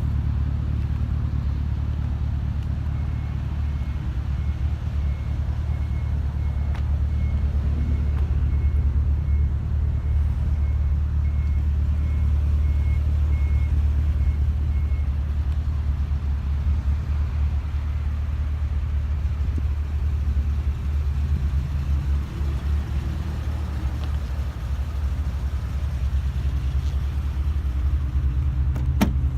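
Holden Commodore SS V's 6.0-litre V8 idling steadily through an XForce aftermarket exhaust, a constant deep hum.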